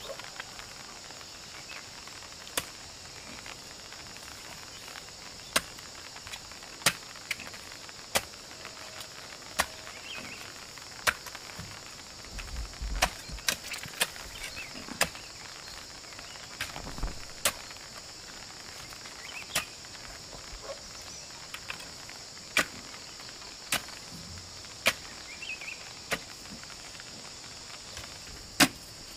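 Sharp, irregular strikes of a long-handled digging tool jabbed down into hard, stony clay soil, about one blow every second or two, while a narrow hole is dug by hand. A steady high insect drone runs underneath.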